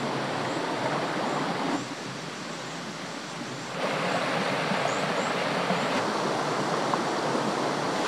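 Stream water rushing over rocks and down a small rock chute, a steady rushing noise that drops lower about two seconds in and comes back louder about four seconds in.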